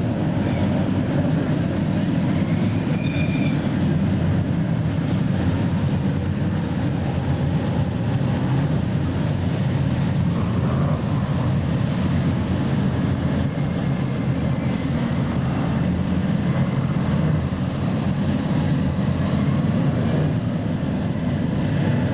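A pack of dirt modified race cars running at speed on the track, their V8 engines making a loud, steady, continuous roar.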